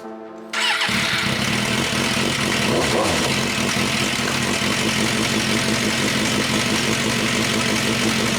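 Guitar music cuts off about half a second in, and a 2005 Suzuki GSX-R750's inline-four engine runs steadily after the fitting of new clutch plates, while it is checked that the clutch works.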